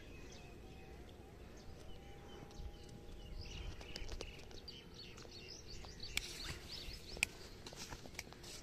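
Quiet outdoor ambience with a run of faint, short high chirps in the middle and a few sharp clicks in the later part.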